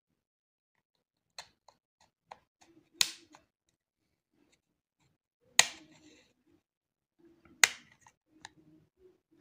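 Retaining clips of a Samsung Galaxy A20's midframe snapping loose as a plastic card is worked between the frame and the phone: three sharp clicks about two and a half seconds apart, with smaller ticks and scrapes of the card in between.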